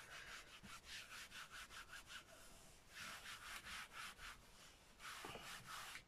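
Palms rubbing over fabric laid on a gel printing plate, pressing it down to pick up the paint print. The strokes are faint, quick and short, coming a few a second in bursts with a brief pause in the middle.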